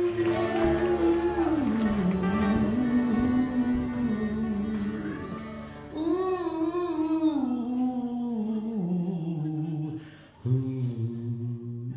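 Live acoustic band: two acoustic guitars and an upright bass backing a male singer who holds long notes with vibrato, stepping down in pitch. The music drops away briefly about ten seconds in, then a held chord rings out.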